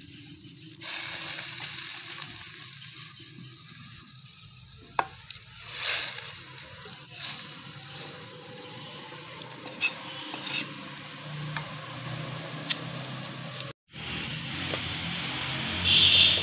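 Chicken curry simmering in an aluminium pot as potato chunks are tipped in and stirred with a wooden spoon, the spoon knocking on the pot several times. Near the end an aluminium lid is set on the pot with a short ringing clank, the loudest sound.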